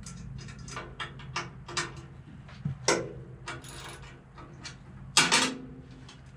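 Metal clicks and clinks of hand tools and engine parts being handled at the carburetor of the sawmill's gasoline engine, over a steady low hum. The loudest clink comes about three seconds in, and a sharp double one follows a couple of seconds later.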